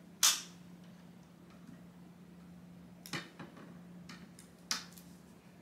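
A metal curtain rod knocking into its plastic adhesive wall hooks: one sharp click just after the start, then two fainter clicks about three and four and a half seconds in, over a steady low hum.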